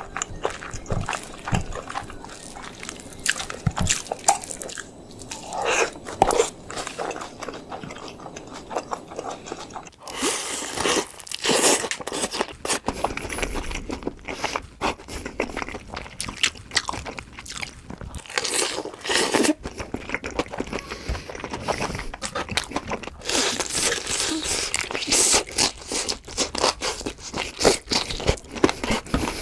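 Close-miked crunching and chewing of crispy fried chicken, with irregular crackles of the breading at each bite. About ten seconds in, the crunching becomes denser and crisper.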